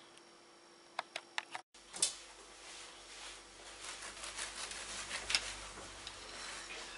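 A knife sawing back and forth through a slice of chocolate-chip sweet bread: dry rasping strokes through crumb and crust, starting about two seconds in after a few light clicks.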